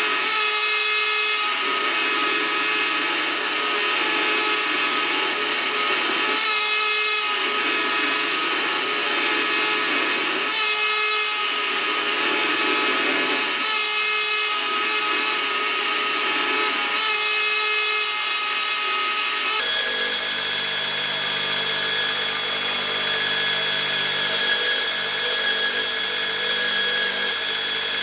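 A power tool running with steady tones, loaded and unloaded in an even rhythm about every two seconds. Then, after a sudden change, a belt grinder runs with a lower hum, and the workpiece is touched to the belt in several short grinding passes near the end.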